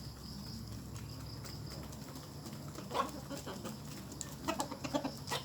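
Chickens clucking faintly over a steady outdoor background, with a short call about three seconds in and a few more calls near the end.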